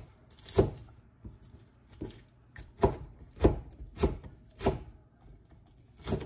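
Kitchen knife chopping on a cutting board: slow, separate knocks, the strongest coming about every half second in the middle.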